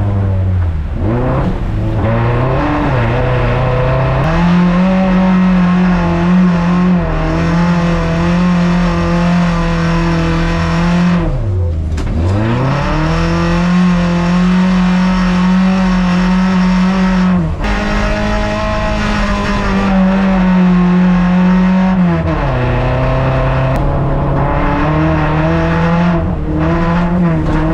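Lada Niva off-road car's engine held at high revs under hard driving. The revs drop sharply and climb again about twelve seconds in, and fall away twice more later on.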